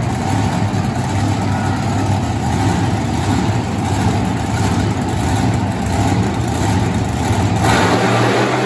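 Monster truck engine running loud and steady, getting a little louder near the end.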